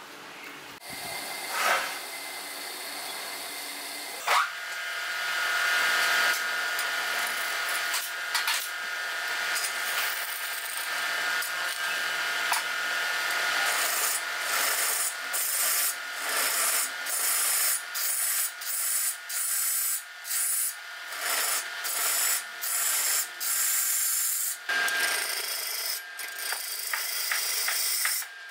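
Wood lathe spinning a wooden cup blank while a hand-held turning tool cuts it, a steady scraping hiss of steel on wood. From about halfway the cut comes in short repeated strokes, a little more than one a second, with brief gaps as the tool is lifted.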